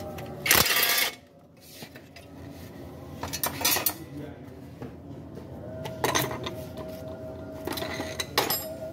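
Metal clinks and rattles of a socket wrench and extension working on bolts under the engine's oil pan, with a dense half-second rattle about half a second in and several shorter clinks after.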